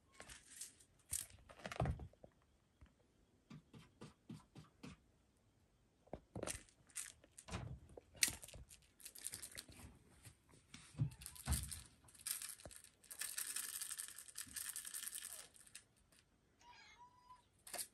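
Ragamuffin kitten pouncing and scrabbling on a tatami mat while playing with a wand toy: scattered scratches, rustles and soft taps of claws and toy, with a longer scratching rasp in the second half.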